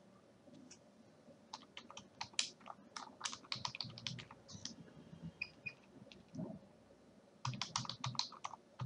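Typing on a computer keyboard: quick runs of key clicks, a pause of about two seconds in the middle, then another fast burst of keystrokes near the end.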